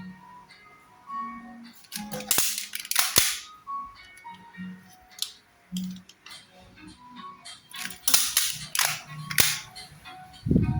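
Toy replica Glock pistol's plastic mechanism snapping and clicking as it is worked, irregular sharp snaps in two clusters, about two to three seconds in and again about eight to nine and a half seconds in. Faint music underneath.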